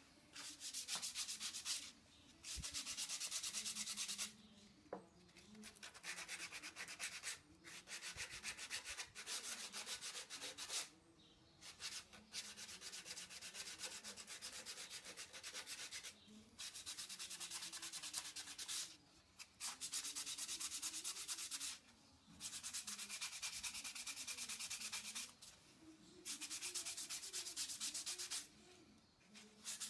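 Sandpaper rubbed back and forth by hand over wood, a dry scratching in quick strokes. The strokes come in runs of a few seconds separated by short pauses.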